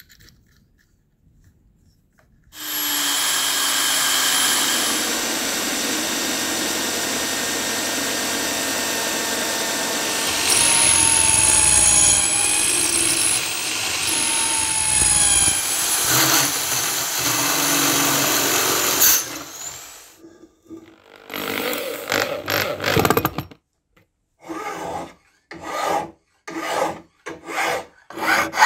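A bench drill press starts up and runs steadily, its bit cutting into a brass block with some whining squeals. After it stops, a hand saw works back and forth on the metal in separate strokes that quicken to about two a second near the end.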